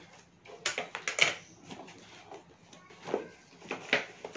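Scissors snipping at a cardboard shipping package and the package being handled: a handful of short sharp clicks and rustles, the loudest about a second in.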